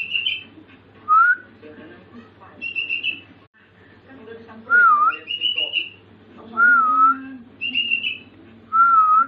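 A caged sooty-headed bulbul learning a song: clear, wavering whistled notes alternate with short, higher, choppy phrases, about every two seconds.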